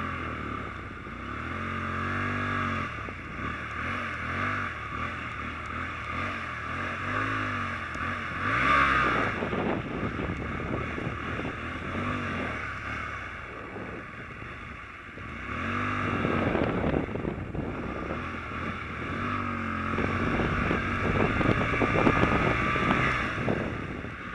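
A small 125cc motorcycle engine ridden offroad, revving up and falling back over and over as the throttle is worked.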